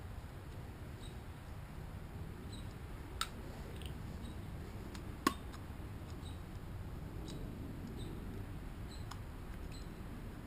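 A few small, sharp clicks from handling, the two clearest about three and five seconds in, over a low steady background rumble.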